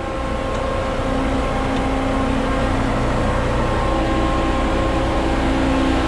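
Grain dryer's fan running steadily with a droning hum, left on after the burner is shut off so the dryer can cool; the grain elevator and spreader are still running with it.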